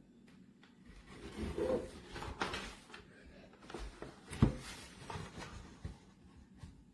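Handling noises: something rubbed and shifted about, with several sharp knocks, the loudest about four and a half seconds in.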